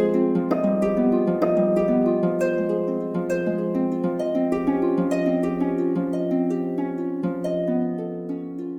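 Gentle background music of plucked harp-like notes, many overlapping tones ringing on, softening slightly toward the end.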